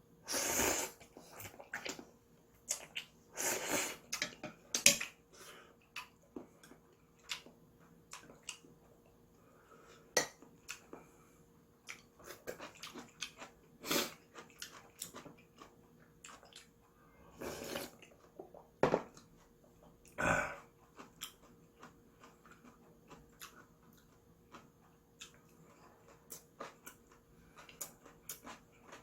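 A person eating instant ramen: a few short, loud slurps of noodles, one right at the start, a cluster a few seconds in and two more past the halfway mark. Between them come chewing and many light clicks of utensils against the bowl.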